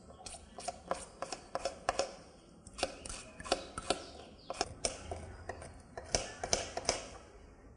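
Irregular sharp clicks and light taps, about twenty, typical of small objects being handled and set down on a table.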